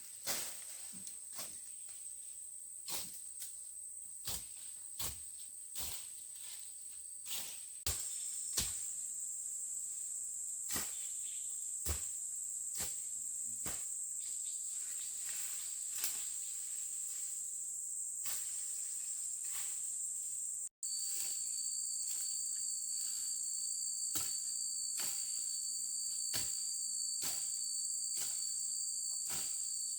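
Insects chirring in a steady high drone, joined by a second steady, somewhat lower insect tone after a brief dropout about two-thirds of the way in. Irregular light clicks and knocks sound throughout.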